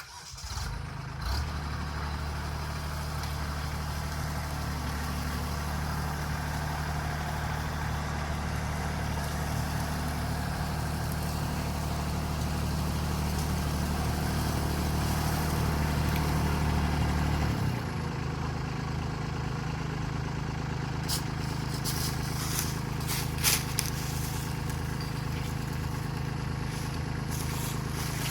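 Kubota LX2610 compact tractor's three-cylinder diesel engine running steadily under load as it pulls on a strap around a dead tree. The engine comes in about a second in, and its note changes about two-thirds of the way through. A few sharp clicks follow near the end.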